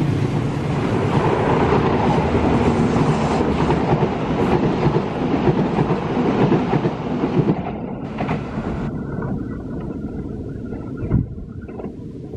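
Diesel-hauled passenger train passing close by: a dense rumble with the wheels clattering over the rail joints as the coaches go past. It fades as the train draws away, with one short sharp knock near the end.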